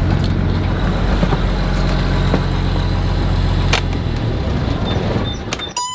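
Lehman marine diesel engine idling steadily, then shut off with the panel's stop button and running down about four seconds in. Near the end the engine panel's alarm buzzer sounds a steady high beep.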